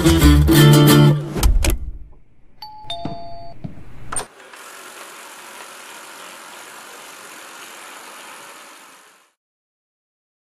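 Background music ends, then a short electronic chime of a few beeps and a click, in the way a robot vacuum cleaner signals. A steady hiss follows and fades out about nine seconds in.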